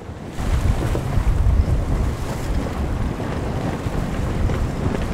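Wind buffeting the microphone in a heavy low rumble over the rush of choppy sea water, getting suddenly louder about half a second in.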